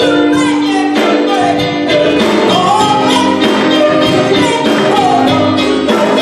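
Live gospel music: a woman singing lead into a microphone over a band with drum kit and electric guitar, with a steady beat.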